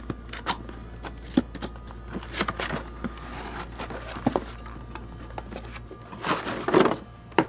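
Cardboard box being opened by hand: scattered sharp clicks and rustles as its flaps are pulled open, with a longer, louder rustle of cardboard about six seconds in.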